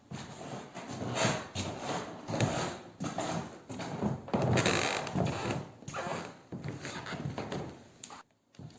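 Old wooden floorboards creaking and squeaking in a string of irregular creaks as someone walks on them.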